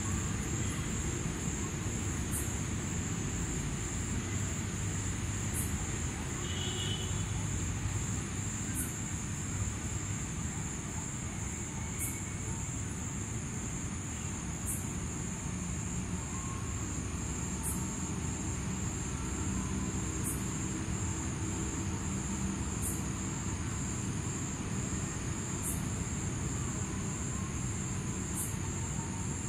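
Night insects, such as crickets, trilling in one continuous high tone over a low steady rumble, with a faint high tick every few seconds.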